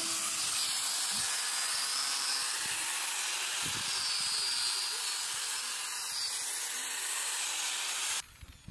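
A steady hiss that cuts off suddenly near the end.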